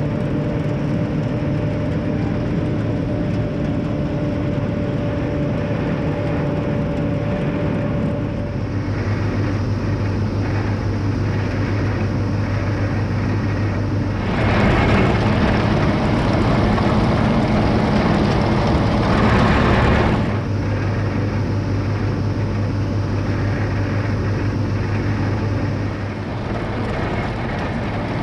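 Farm tractor engine running steadily with its field machinery working in the hay, its pitch shifting about a third of the way in, then a louder, rougher stretch from about halfway to two-thirds through before it settles back.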